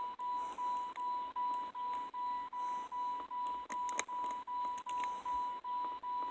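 Electronic warning beep: a single steady high tone pulsing evenly about two to three times a second, with a faint click about four seconds in.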